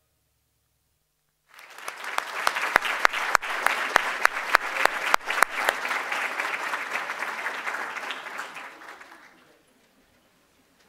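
Audience applause that begins about a second and a half in, with a few sharp, close claps standing out over the crowd, then dies away shortly before the end.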